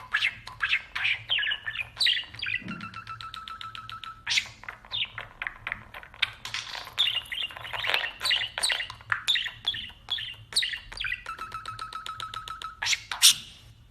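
A bird chirping in quick, falling chirps, with a held whistled note about two and a half seconds in and another near the end.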